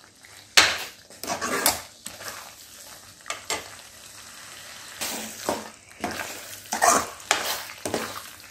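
Steel spoon stirring and scraping chicken pieces in thick masala gravy in an aluminium kadai, in irregular strokes, over a light sizzle from the hot pan.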